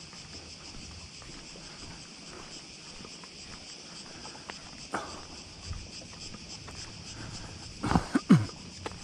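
Steady high-pitched drone of cicadas. A few sharp thumps come about eight seconds in.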